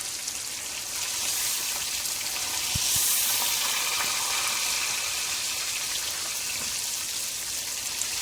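Chicken tenders sizzling as they fry in hot oil, a steady hiss that swells about a second in and is loudest around three seconds.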